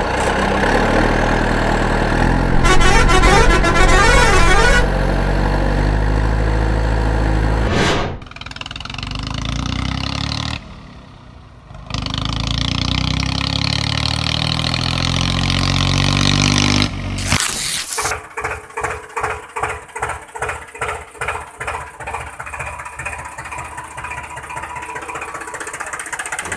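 Dubbed-in vehicle sound effects: a truck horn sounding over a running engine, then an engine chugging at about two to three beats a second in the second half.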